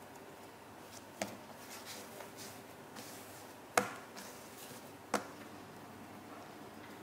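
Hands rolling and coiling soft bread dough on a silicone baking mat: quiet handling rustle with three sharp taps, the loudest about halfway through.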